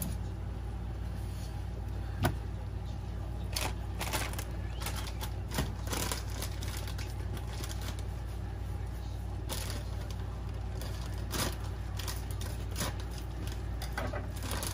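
A hot foil pan of just-broiled fish crackling and ticking: about a dozen faint, scattered clicks a second or so apart, over a steady low hum.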